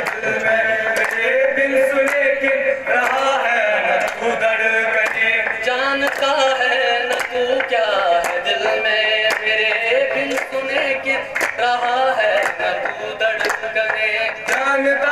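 Male voices singing a qawwali, a lead singer with a group of chorus singers, over steady rhythmic hand clapping.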